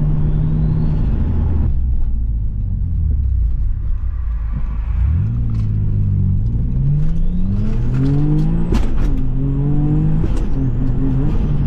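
Turbocharged Subaru EZ30 flat-six engine accelerating under load: steady at first, then the revs climb from about five seconds in, fall at a gear change and climb again, with a faint high whistle rising alongside.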